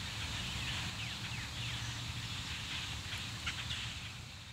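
Birds calling outdoors, short falling chirps repeated over a low steady hum, the whole fading down near the end.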